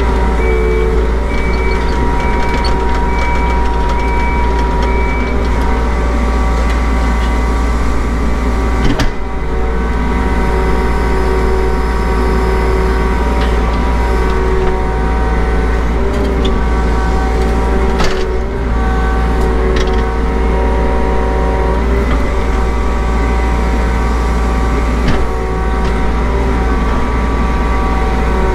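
Mini excavator's diesel engine running steadily, heard from inside the cab, with whining tones that step up and down as the hydraulics work the boom and bucket. Sharp knocks about 9 and 18 seconds in.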